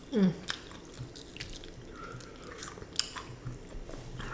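Someone chewing crispy fried chicken: scattered crunches and wet mouth clicks, with a short falling vocal sound right at the start.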